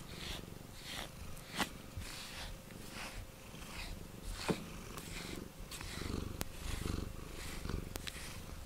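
Domestic cat purring right at the microphone, a rhythmic pulse about twice a second, with two sharp clicks about one and a half and four and a half seconds in.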